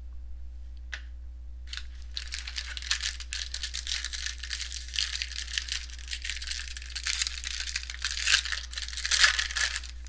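A trading-card pack wrapper being torn open and crinkled, with the cards inside being handled. It is a dense crackle that starts about two seconds in and carries on to the end, over a steady low hum.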